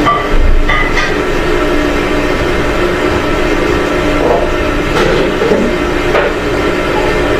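Steady vehicle rumble, with a few brief high squeals about a second in and again near the middle.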